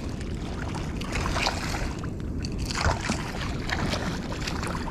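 Shallow water sloshing and lapping with wind rumbling on the microphone, and a brief splash a little before three seconds in.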